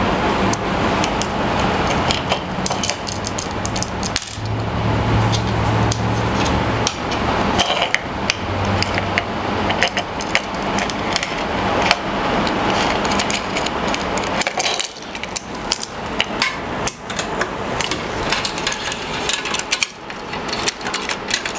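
Repeated sharp clicks and knocks of small hard parts being handled and fitted at a router table, over steady background noise.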